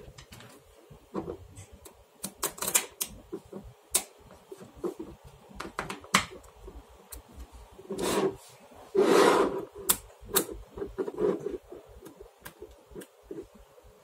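Small neodymium magnetic balls clicking and snapping together as they are handled and pressed into a block, in irregular sharp clicks. A longer, louder clatter comes about eight seconds in and again just after nine seconds.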